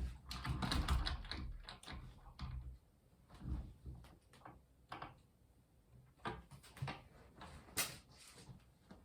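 Handling and rummaging noises: rustling with low thumps for the first couple of seconds, then scattered knocks and clicks, the sharpest near the end.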